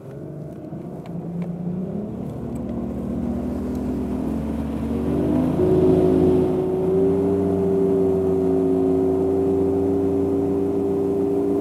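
Bass boat's outboard motor accelerating as the boat gets under way, its pitch climbing over the first five seconds or so, then holding a steady high-speed run.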